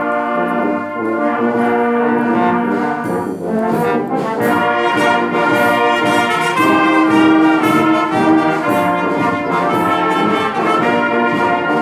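Church brass band of trumpets, trombones and tubas playing a hymn in full harmony, with sustained chords moving from note to note.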